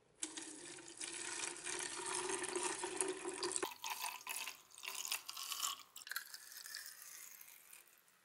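Liquid poured in a stream into a plastic container holding a rusty knife blade, splashing as it fills. The blade is being submerged in rust remover. The sound changes abruptly about three and a half seconds in and becomes more splashy, then tails off near the end.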